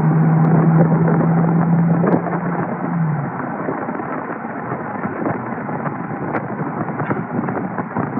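BMW 335i with its N54 twin-turbo inline-six, driving on the road. A steady engine drone over road and wind noise drops away about three seconds in, and the road noise carries on.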